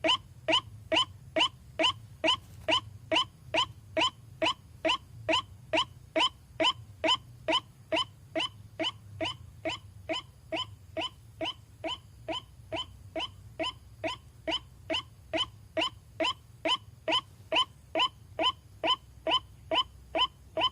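White-breasted waterhen (ruak-ruak) call: one short note repeated evenly about twice a second, without pause, as played for luring the birds.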